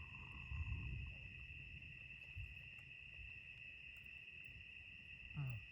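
Faint, steady high-pitched trilling of night insects, with a low rumble underneath. Near the end there is a brief falling sound.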